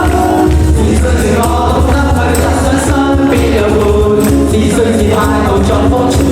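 Live rock band playing with voices singing along, a heavy bass pulse and drum cymbals under the melody.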